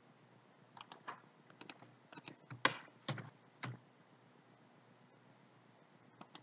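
Computer keyboard keys tapped in a few short, quick clusters during the first four seconds: shortcut keystrokes entered while editing a mesh in Blender.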